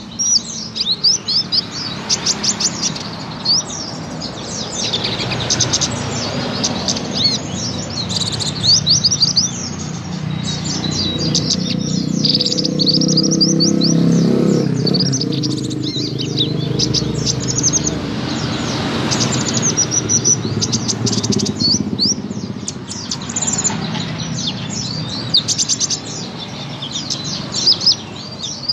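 Female kolibri ninja (a sunbird) singing vigorously: a continuous run of rapid, high, thin chirps and trills. A low hum rises under the song in the middle and fades again.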